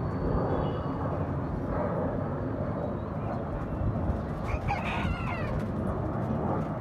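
A rooster crowing once, about four and a half seconds in, over steady background noise.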